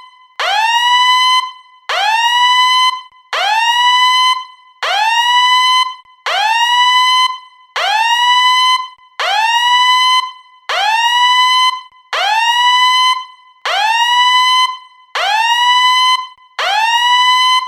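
Submarine fire alarm whooping over and over: each tone sweeps quickly up to a steady high note, holds it for about a second and cuts off, repeating about every second and a half.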